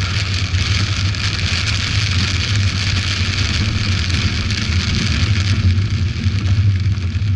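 Heavy rain beating on a Mercedes-Benz CLK 430's windshield and body, with the tyres hissing through water on the road. A steady low drone from the car runs underneath, heard from inside the cabin.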